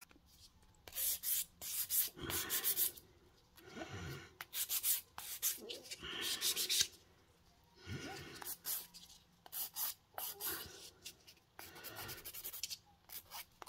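Hand nail file rasping over a hardened poly gel nail tip in quick runs of short back-and-forth strokes, with brief pauses between runs.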